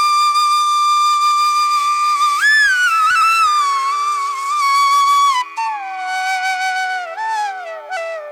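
Background music: a solo flute plays a slow melody over a steady drone. It holds one long note for about two seconds, then moves through sliding pitch bends.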